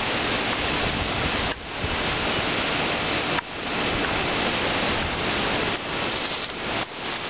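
Strong storm wind buffeting the microphone and rushing through the tree leaves, a loud, even rush. It drops off suddenly twice, about a second and a half and three and a half seconds in, and builds back each time, then wavers near the end.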